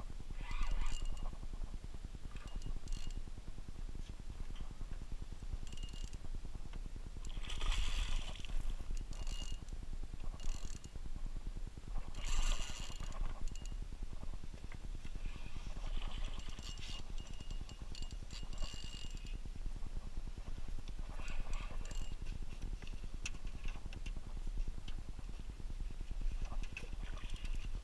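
A hooked carp splashing at the surface beside the boat in irregular bursts, a dozen or so spread through the fight. Between the splashes comes the mechanical sound of a spinning reel working, some of it a thin high whine.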